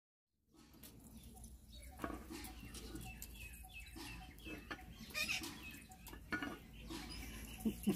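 Chickens clucking in short calls, with a few sharp clicks and a low steady hum underneath.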